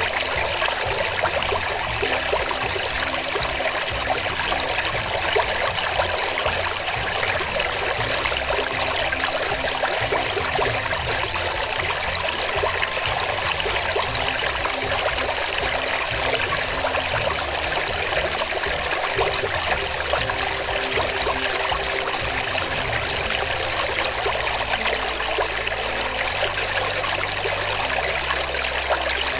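Steady rushing of running water, like a flowing stream, with no breaks. A low hum lies underneath and shifts pitch in steps near the end.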